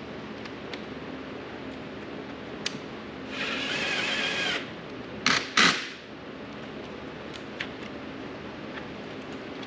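Cordless power driver running for a little over a second with a steady whine while fastening the side-mirror assembly back onto the door, followed by two short, loud bursts of the driver.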